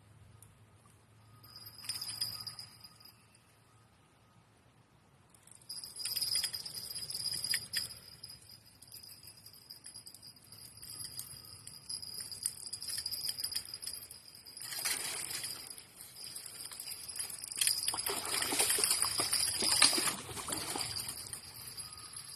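Small bell clipped to a fishing rod jingling in uneven bouts as the rod shakes with a fish on the line. The jingling is loudest and busiest in a long spell past the middle.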